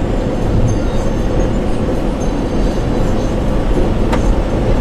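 Steady rumble of a moving vehicle, engine and road noise, with one short click about four seconds in.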